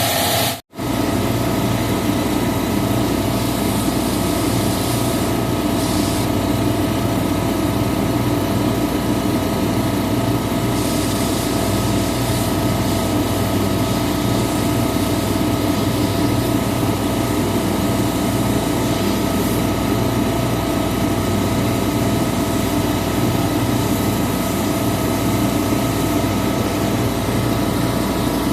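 Refrigeration compressor unit running: a steady machine hum with several held tones over a noisy whir. The sound drops out briefly about half a second in.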